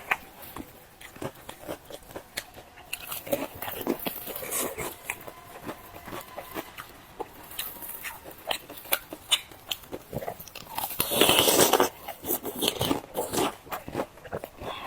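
Close-up chewing and crunching of fried dough sticks: irregular crisp bites and mouth sounds, with a louder stretch of noise lasting about a second near eleven seconds in.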